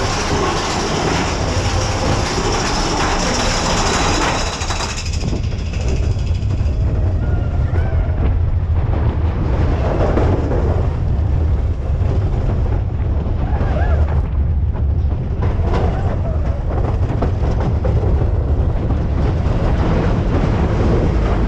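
Big Thunder Mountain Railroad mine-train roller coaster running along its track, a heavy low rumble of the cars with wind and track noise. A loud rushing hiss drops away about five seconds in. A few faint voices come from the riders.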